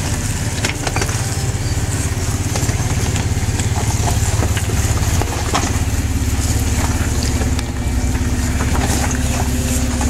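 Jeep Wrangler TJ's engine running steadily at low revs as it crawls over creek-bed rocks, with its mud-terrain tyres crunching and clicking on loose stones.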